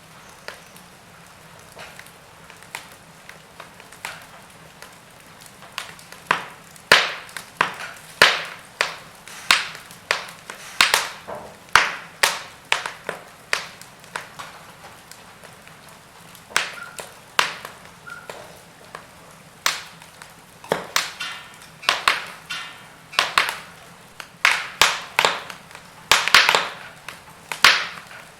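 Wood fire in a fireplace crackling: irregular sharp pops and snaps of burning logs, sparse for the first few seconds and then coming thick and fast.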